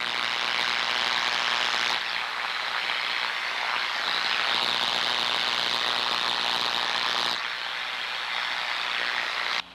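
Destructive high-voltage corona at a severe stage, heard through an Ultraprobe 2000 ultrasonic detector: a dense, steady sizzling with a low electrical hum underneath. Its tone shifts about two seconds in and again near the end, and it cuts off suddenly.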